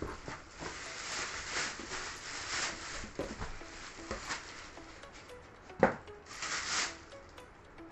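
Plastic wrapping rustling and crinkling as an electric kick scooter is pulled out of its bag and stripped of its foam packing, with a few knocks of the scooter on a wooden floor, the loudest a sharp thump about six seconds in.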